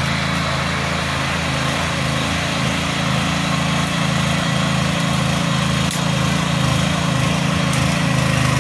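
Power weeder's 7 hp petrol engine running steadily under load as its rotary tines churn through the soil.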